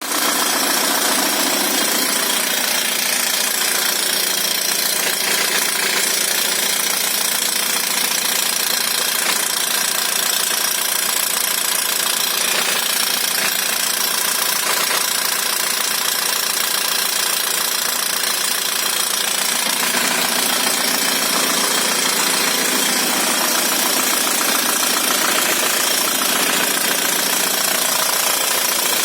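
Opel Frontera B diesel engine running at idle with a knock whose cause is not known.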